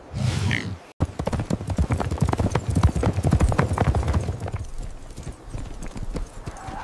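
Hoofbeats of several horses on a dirt track, dense and quick, thinning out after about five seconds. A short noisy burst comes in the first second, and a brief wavering tone near the end.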